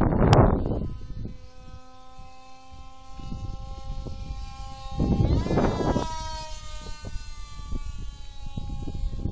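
Brushless electric motor and propeller of a foam RC model jet whining overhead in a steady tone. About five seconds in the pitch rises sharply, then slowly falls. Wind buffets the microphone at the start and again when the pitch rises.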